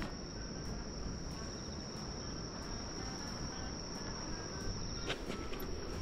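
Crickets trilling in one steady, high-pitched note, over a low rumble of wind, with a couple of faint ticks near the end.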